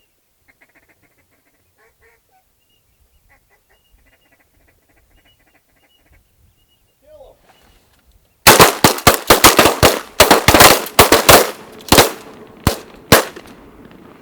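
Faint wigeon whistling calls, then a volley of shotgun fire from several guns: about a dozen shots packed into three seconds, then a few more spaced out over the next two.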